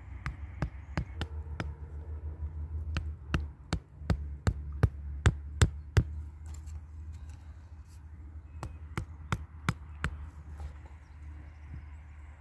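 Hammer striking the head of a sharpened wooden stake, driving it into the soil. It makes a run of sharp knocks about three a second, loudest around five seconds in, then stops, and a shorter run of knocks follows near the end.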